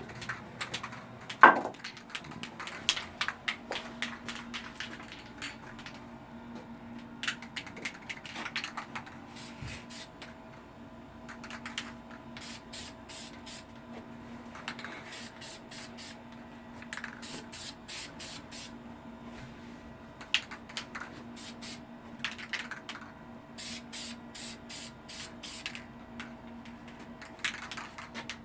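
Spray paint hissing in many short bursts, some in quick runs of about two a second, as a first coat of paint is laid down. A faint steady hum runs beneath.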